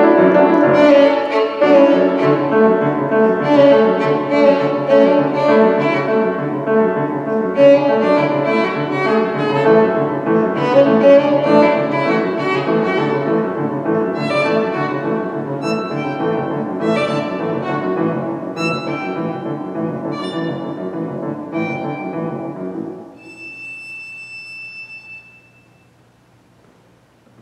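Violin and piano playing together, the violin over a steady pulsing piano accompaniment. The music stops about 23 seconds in, a faint high note lingers for a few seconds, and then the room goes quiet.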